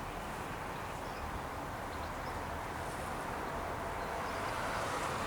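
Steady outdoor background noise: a low, fluctuating rumble of wind on the microphone with a faint hiss, rising a little near the end.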